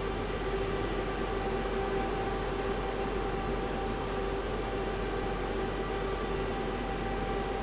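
Steady hum of several constant tones from a stationary NS SGMm Sprinter electric multiple unit standing at an underground station platform, its onboard equipment running while it waits to depart.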